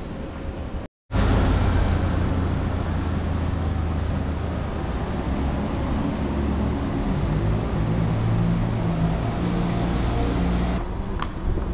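Road traffic under a railway overpass: cars' engines and tyres making a loud, steady low rumble. It cuts in after a moment of silence about a second in and drops off abruptly near the end.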